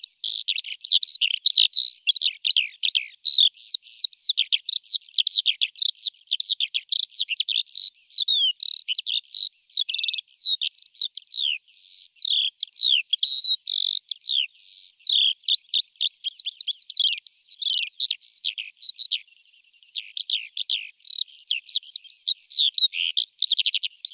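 Eurasian skylark singing: a continuous, rapid, high warbling stream of chirps and trills with no pauses.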